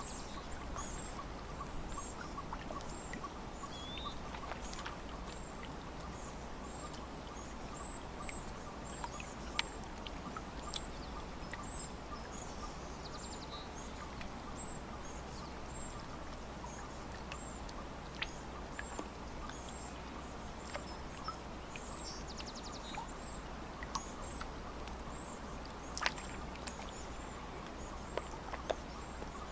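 Birds calling at a lakeside: short, high chirps repeated all through, over a steady low background hum of outdoor ambience, with a few faint clicks.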